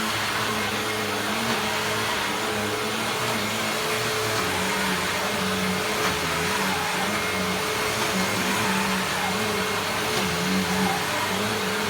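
A Hoover WindTunnel Self-Propelled Premium upright vacuum cleaner running steadily, with its motor's steady whine over a lower hum that comes and goes.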